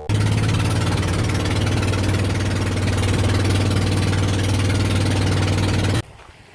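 A motor engine running steadily at an even pitch with a strong low hum. It cuts off suddenly about six seconds in.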